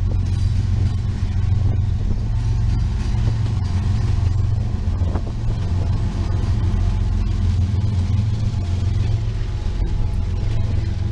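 CN freight train passing close by: its diesel-electric locomotives go by with a steady, low engine drone and rumble, then autorack cars roll past near the end.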